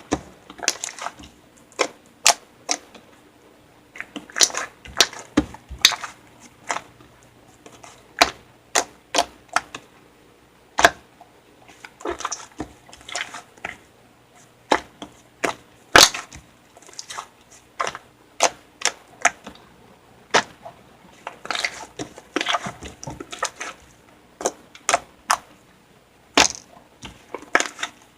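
Slime being pressed, squished and stretched by hand, giving irregular sharp clicks and pops, about one or two a second with busier clusters now and then.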